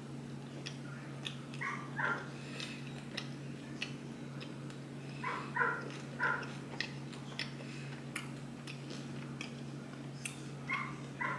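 A dog barking in short, high yaps in small groups: two about two seconds in, three in the middle and two near the end, over a steady low hum.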